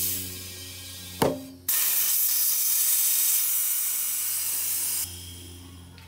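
Compressed air from a blow-gun tire chuck filling a scooter tire: a sharp pop about a second in as the tire bead snaps onto the rim, then a loud rush of air for about three seconds that cuts off sharply.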